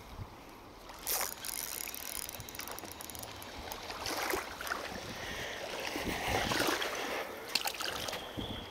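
Water splashing and lapping in the shallows at the shoreline, with a sharp knock about a second in and another near the end.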